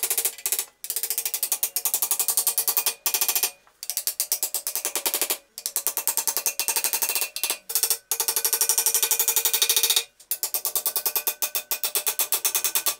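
A ratchet clicking rapidly, about a dozen clicks a second, in runs of a second or two broken by short pauses.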